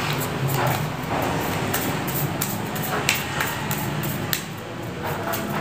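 A deck of playing cards being handled and shuffled by hand: a run of crisp, irregular clicks and snaps of cards against each other, over a steady low hum.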